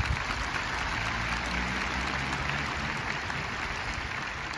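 Stadium crowd applauding, a dense steady clapping that eases off slightly near the end.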